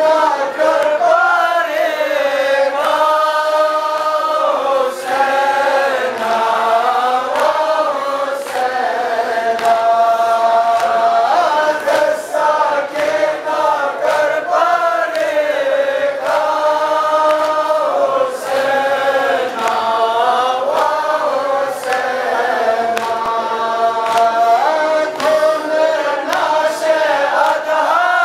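A man chanting a noha, a Shia mourning elegy, through a microphone and loudspeakers, in long melodic held lines that bend up and down in pitch. A faint steady beat of sharp strokes, about one a second, runs under the chant.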